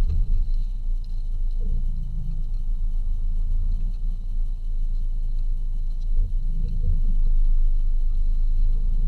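Low, steady rumble of a Jeep Cherokee KJ's engine and drivetrain, heard from inside the cabin as the vehicle crawls slowly up a sandy track.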